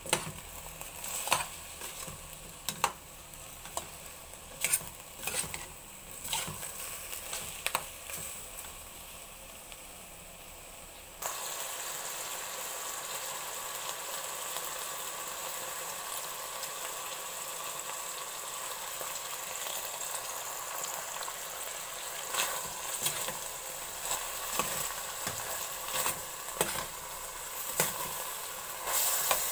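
Diced pork frying in a stainless steel pot, with a spatula knocking and scraping against the pot. About eleven seconds in, a louder steady sizzle comes in suddenly and carries on, with more spatula knocks near the end.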